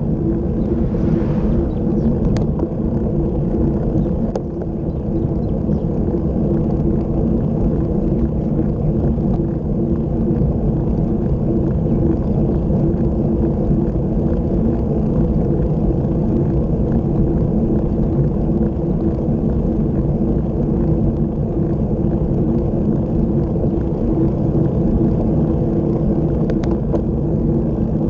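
Steady wind rush on the camera microphone from travelling fast downhill, over the continuous rumble of tyres on asphalt, with a few light clicks near the start and near the end.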